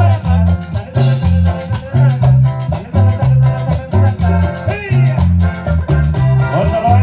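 Live cumbia band playing through a PA system, with a steady beat, a strong bass line and a melody on top.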